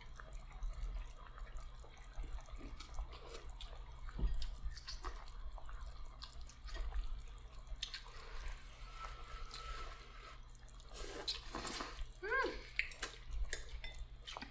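Mukbang eating sounds: noodles slurped, with wet mouth noises and light clicks of chopsticks and spoons against bowls. The loudest slurp comes about eleven seconds in.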